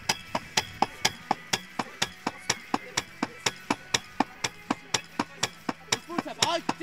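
Hammer blows on a block in a steady rapid rhythm, about four strikes a second, by a firefighter working a hammering station. A voice calls out briefly near the end.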